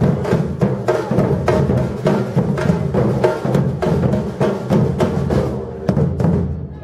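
Batucada drum ensemble playing a steady, driving rhythm: deep surdo bass drums under sharp, rapid high drum strokes. Near the end the high strokes thin out and the sound gets a little quieter.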